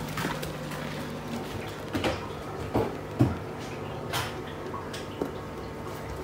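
A few scattered knocks and clinks as a steel saucepan is handled at a stainless-steel sink beside a plastic colander. The loudest comes a little past three seconds in, over a steady low hum.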